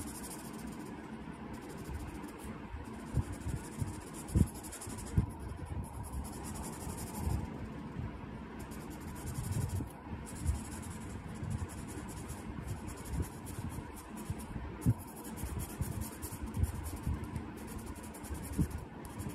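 Felt-tip marker rubbing back and forth over paper as an area is coloured in green, a scratchy rustle that comes in strokes, with scattered light thumps.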